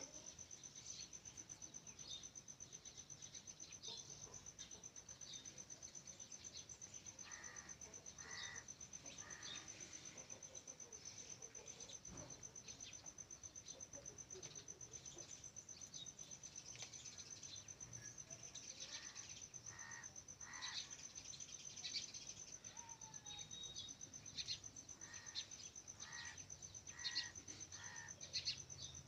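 Faint outdoor ambience: a steady, high-pitched insect trill with scattered short, faint bird chirps.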